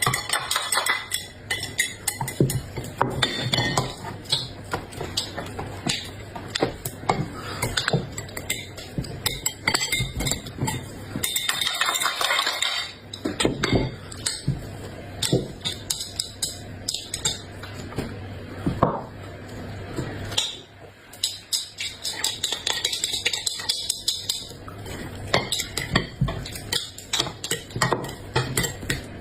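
Eating with utensils: cutlery clinking and scraping against dishes, with many quick, irregular clicks and taps.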